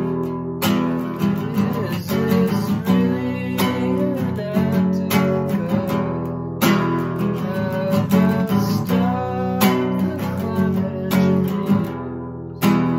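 Acoustic guitar with a capo strumming chords, with a man's voice singing a few drawn-out lines over it.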